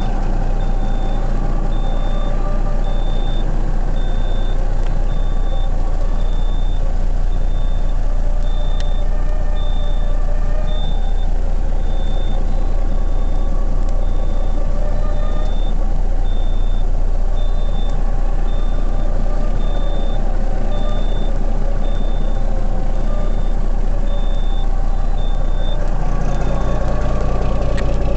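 The Caterpillar diesel engine of a 1992 Kenworth W900 runs at idle after a cold start, heard from inside the cab. Over it, a high dash warning beep repeats about every three-quarters of a second. The beep stops about 26 seconds in, just as the engine note changes.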